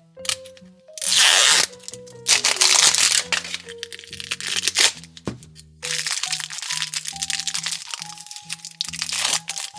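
Plastic packaging crinkling and crackling in several loud bursts as it is handled and opened, over light background music.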